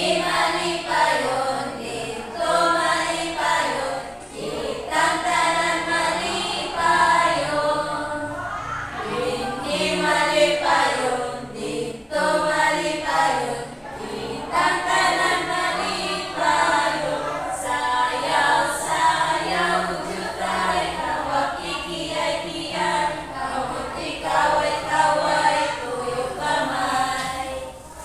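Several voices singing a song together in short phrases with brief breaks between them.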